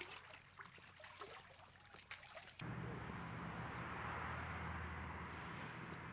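Quiet outdoor sound with a few light ticks as a pool skimmer net is worked through the water. About two and a half seconds in it cuts abruptly to a steady, louder hiss over a low hum: gas station ambience.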